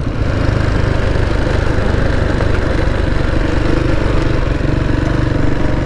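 KTM 690 Enduro's single-cylinder engine running steadily under way on a dirt road, heard from the bike-mounted camera.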